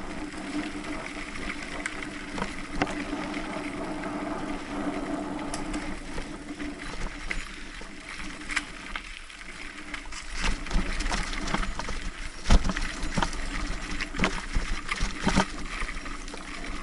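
Mountain bike rolling over a rough dirt trail: tyres on loose ground, with rattles and sharp knocks from the frame and chain over bumps that come thick in the second half, one knock much louder than the rest. A steady hum runs through the first half, and a low rumble of wind on the microphone comes in during the second half.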